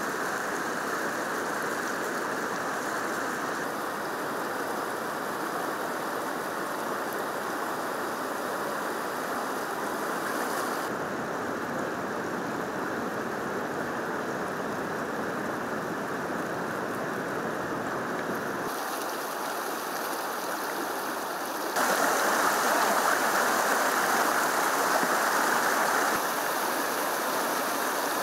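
Flowing floodwater rushing steadily. The sound shifts in level and tone at each shot change and is loudest for about four seconds near the end.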